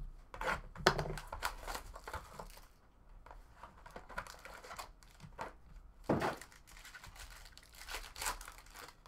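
A Topps Tier One trading-card box being handled and opened by hand: a run of short tearing, crinkling and scraping noises, with the loudest rip about six seconds in.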